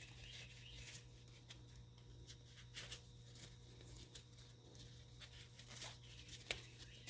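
Faint, scattered clicks and rustling of hands working a cut strip of bicycle inner tube into a seat strap, over a steady low hum.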